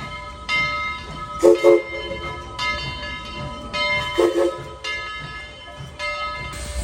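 Southern Railway 4501's Princeton three-chime steam whistle giving short toots: two quick ones about a second and a half in and another a little past the middle. Under it a ringing is struck about once a second.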